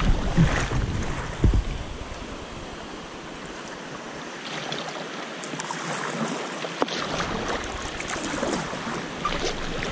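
Creek water running over a shallow rocky riffle around a kayak, with scattered splashes of paddle strokes. Wind rumbles on the microphone in the first couple of seconds, then eases.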